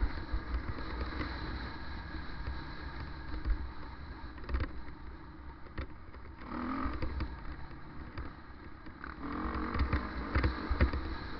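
Off-road motorcycle engine running while riding a rough dirt trail, revving up and easing off a couple of times, with low wind rumble on the microphone and sharp knocks as bumps jolt the camera.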